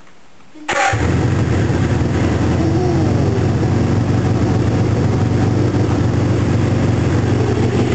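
1981 Suzuki GS650G motorcycle's air-cooled inline-four engine cutting in suddenly under a second in, then running loud and steady at idle in a small garage, freshly reassembled and running smoothly.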